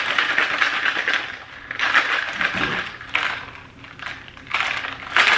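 Plastic shaker bottle being shaken hard to mix a pre-workout drink, the liquid sloshing inside in about four bursts with short pauses between them.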